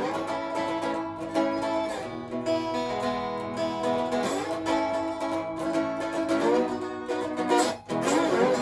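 Tri-cone resonator guitar in open E tuning played with a slide: picked notes ring on while the slide glides between pitches several times. Near the end the sound briefly cuts out, then the slide sweeps upward.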